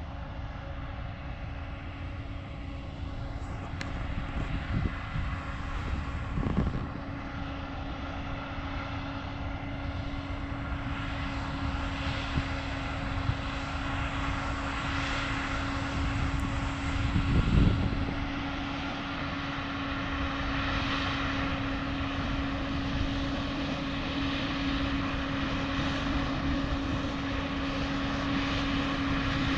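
A machine running steadily, with a constant hum over a low rumble that swells briefly about six and about seventeen seconds in.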